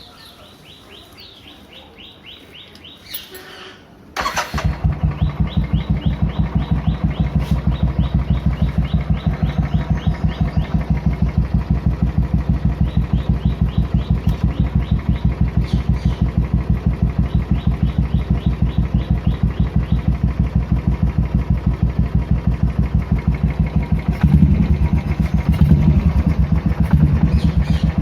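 Royal Enfield Classic 350's single-cylinder engine starting about four seconds in and settling into a steady, evenly pulsing idle. Near the end it gets louder in a few uneven surges as the throttle is blipped.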